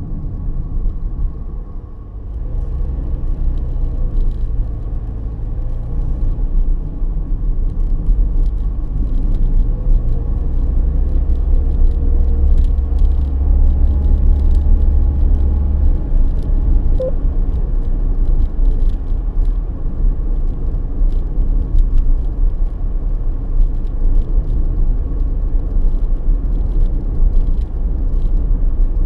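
Steady rumble of a car's engine and tyres on the road, heard from inside the cabin. It grows louder about two seconds in and then holds.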